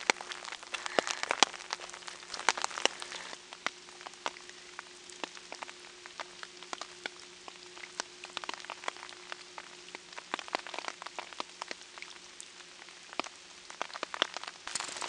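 Light rain falling, with many irregular raindrop ticks hitting close to the microphone over a soft hiss.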